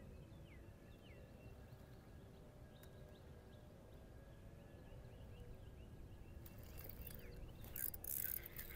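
Quiet open-air lake ambience with a few faint, short bird chirps. Near the end, a louder scratchy mechanical whirring starts, typical of a spinning fishing reel being cranked.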